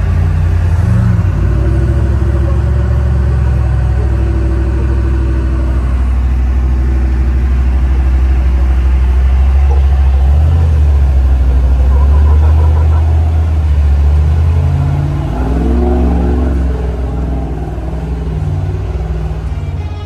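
Off-road rock crawler's engine running at low revs on a rock climb, heard from inside the cab as a deep, steady rumble. The revs rise and fall briefly near the start and again about three-quarters of the way in.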